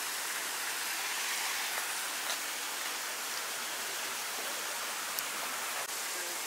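A steady, even rushing hiss like running water or rain, with a couple of faint ticks.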